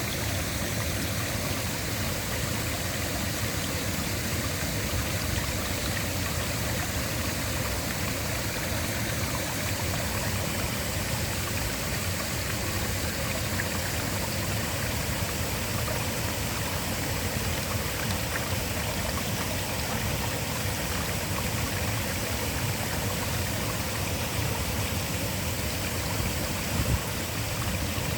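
A waterfall: a steady, even rush of falling water.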